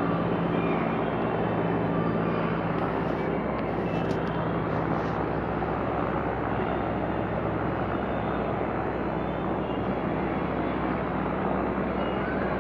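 Helicopter flying overhead: a steady drone of rotor and turbine engine.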